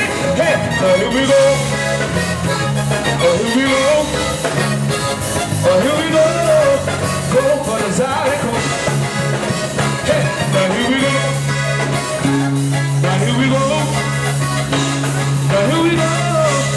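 A live zydeco band playing a dance number with a steady beat and held bass notes.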